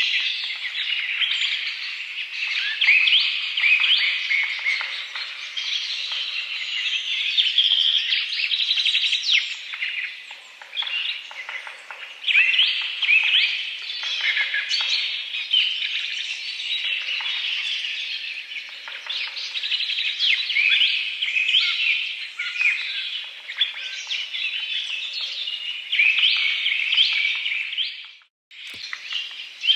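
Dense chorus of many small birds chirping and twittering continuously, overlapping high calls; the sound cuts out briefly near the end.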